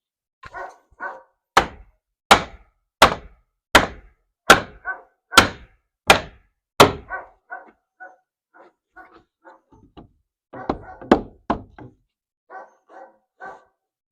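About eight sharp, heavy blows on a wooden board, roughly one every three-quarters of a second, knocking it down into place, with two or three more blows near the end. A dog barks repeatedly throughout.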